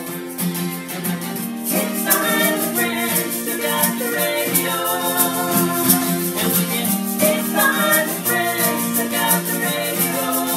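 Two acoustic guitars strumming a song, with hand shakers keeping a steady beat and a melody line carried over them.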